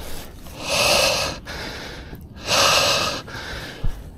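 A mountain biker breathing hard and out of breath from exertion, with two loud heavy breaths about a second and a half apart and fainter breaths between them.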